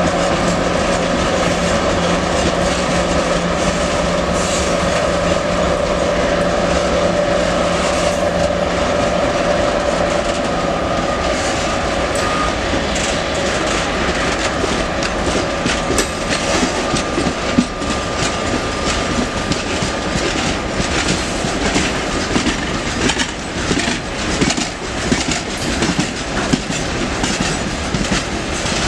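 Broad-gauge freight train of ore wagons rolling past in a steady rumble. A hum sounds through the first half, a thin high squeal runs through the middle, and in the second half the wagon wheels clatter over the rail joints in a run of sharp clicks.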